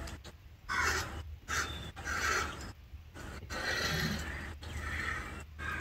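A person breathing in short hissy puffs, about six of them at uneven intervals, over a faint steady low hum.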